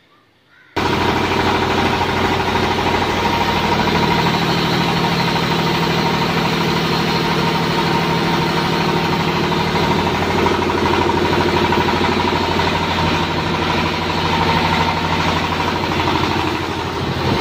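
A 29-horsepower Peter diesel engine running steadily under load, driving a 50x48 flour mill that grinds wheat. The loud steady running cuts in abruptly about a second in.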